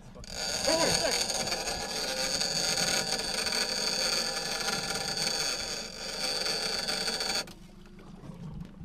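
Fishing reel drag screaming as a hooked yellowfin tuna runs and strips line: a steady high-pitched whine that starts suddenly and cuts off abruptly after about seven seconds.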